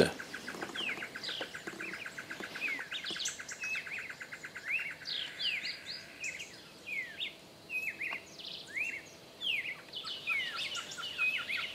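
Several small birds chirping: many short, quick, sweeping notes that overlap one another. Under them runs a fast, even ticking trill in the first few seconds and again near the end.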